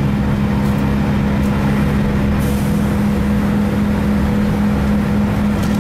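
Class 165 Turbo diesel multiple unit running, its diesel engine giving a steady drone with a constant hum over a low rumble.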